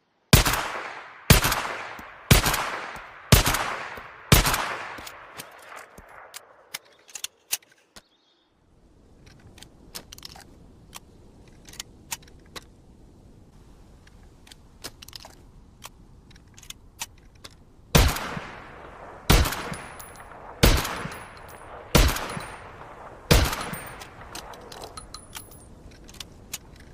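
.22 repeater rifle fired in two strings: five shots about a second apart, each with a ringing tail, then a pause with scattered faint clicks, then six more shots at a slightly slower pace.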